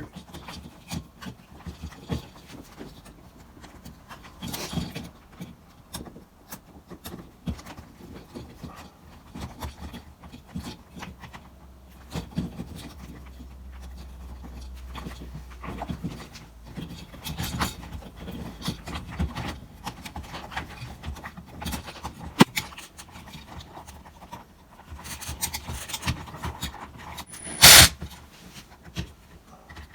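Scattered rustling, light clicks and knocks of hardware and tools being handled, with one sharp, loud knock near the end.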